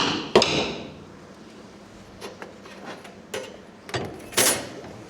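Steel patch plate and clamps clanking against the steel deck as the plate is set in position: two sharp clanks with a brief metallic ring at the start, a loud hit about four seconds in, and lighter knocks between.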